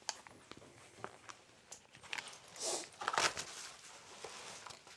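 Handling noise: small clicks and knocks as a handheld audio recorder is set down on a metal shelf, with a sharp click at the start, then louder rustling of clothing and shuffling steps a little past halfway.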